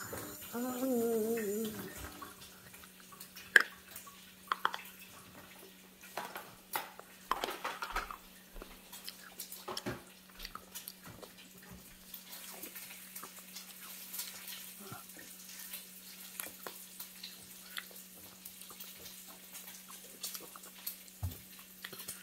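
Child chewing a chewable multivitamin: scattered soft wet mouth clicks and smacks, after a brief falling vocal sound in the first two seconds. A faint steady low hum runs underneath.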